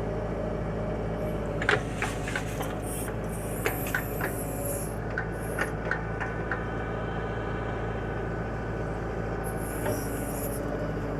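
Branson compact tractor with a backhoe running steadily while digging, with several sharp clanks between about one and six and a half seconds in and one more near the end.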